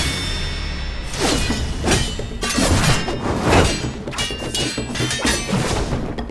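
Animated-fight sound effects: a sudden loud crash, then a rapid string of heavy impacts and shattering crashes over a low rumble, with music underneath.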